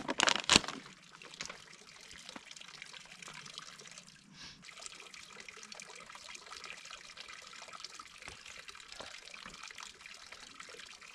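Steady trickle of water running into a wooden log trough. It opens with a brief clatter as a backpack is set down.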